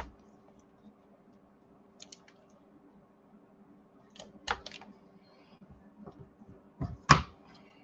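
Light clicks, taps and short rustles of paper and double-sided score tape being handled on a cutting mat, with a couple of louder rustles about halfway through and near the end. A faint steady hum runs underneath.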